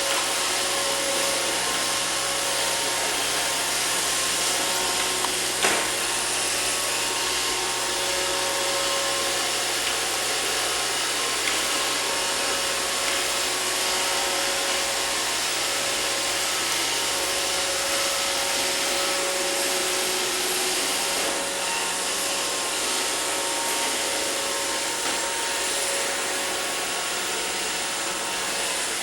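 iRobot Roomba robot vacuum running steadily, its motor whining over the hiss of its brushes and suction, with a single brief knock about six seconds in.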